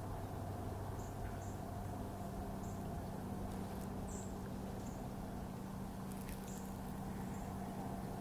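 Quiet woodland ambience: short, very high chirps every second or so, a few soft rustles in dry leaves, and a low steady hum underneath.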